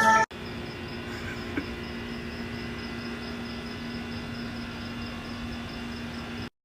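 Steady low hum and hiss of a quiet room, with a faint high ticking about five times a second and one small click a second and a half in; the sound cuts off abruptly near the end.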